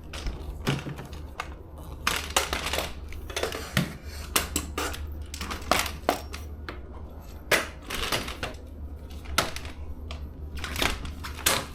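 Irregular metallic clicks, clanks and rattles as a walker is set in place and an e-bike is lifted onto it, over a low steady hum.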